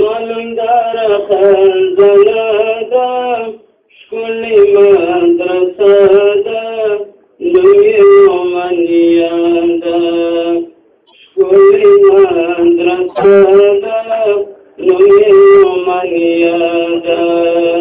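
A male voice chanting a Pashto naat unaccompanied, in melodic phrases of three to four seconds with long held notes, each separated by a short pause for breath.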